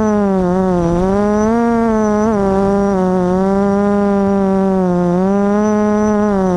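QAV400 FPV quadcopter's motors and propellers buzzing close to the onboard camera, the pitch sagging and rising as the throttle changes, with a dip about a second in and another near five seconds.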